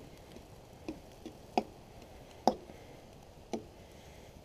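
Metal fork clicking against a frying pan while stirring spaghetti: about five sharp clicks, irregularly spaced roughly a second apart.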